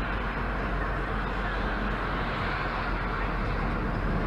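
Steady road noise inside a moving car on a wet road: tyre hiss on wet asphalt over a low engine hum.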